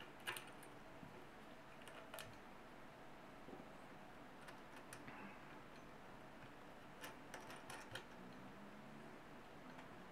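Near silence with a few faint clicks and taps of small parts being handled, as a bullpup trigger mechanism is connected to an air rifle's original trigger: one click at the start, one about two seconds in, and a short cluster near the end.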